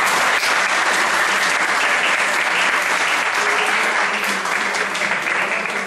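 Audience applauding: a dense, steady patter of many hands clapping that eases off near the end.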